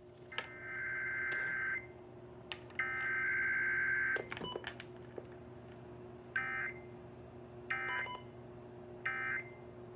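Emergency Alert System SAME digital data bursts off a radio broadcast: two long warbling header bursts, then three short end-of-message bursts about a second and a half apart, over a low steady hum.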